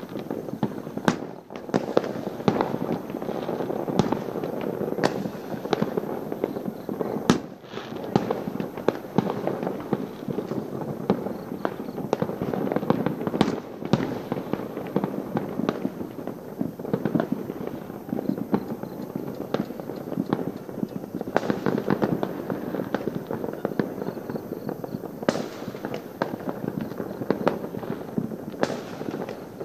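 Many fireworks going off at once: a dense, unbroken rattle of overlapping bangs and crackles, with sharper single reports standing out every second or two.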